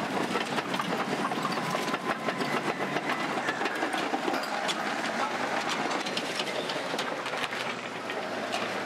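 Crawler bulldozer running while it knocks down a shack: steady clanking and rattling with many sharp cracks and knocks of breaking debris.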